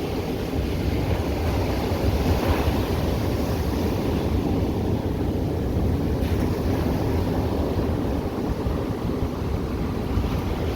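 Atlantic surf washing onto the beach in a steady wash of noise, with wind rumbling on the microphone underneath.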